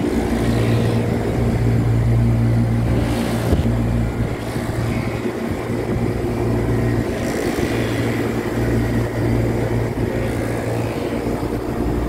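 Steady machinery hum from running air-cooled chiller units, their compressors and condenser fans making a constant low drone with a few steady tones.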